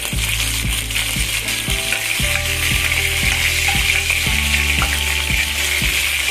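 Fresh curry leaves sizzling and spluttering in hot oil with mustard and cumin seeds in a stainless steel kadai while being stirred with a ladle. This is the tempering (tadka) stage. The sizzle grows louder about a second in and then holds steady.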